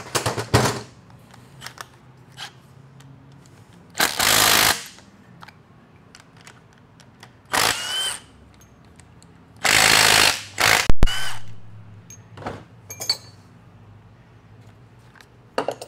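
Cordless impact wrench run in about four short bursts, a couple of them with a rising whine as it spins up, taking out the bolts of a transmission's overdrive housing. Sharp metal clinks of bolts and tools on the steel bench come at the start and again just after the last burst.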